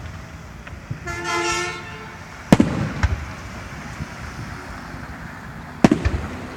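Aerial fireworks shells bursting: two loud booms about three seconds apart, each followed by a few smaller cracks. Before the first boom, a steady horn-like tone sounds for about a second.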